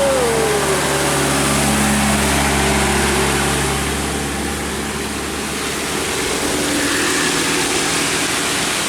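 Bus engine running steadily under a constant hiss. Right at the start, a short tone slides up and back down.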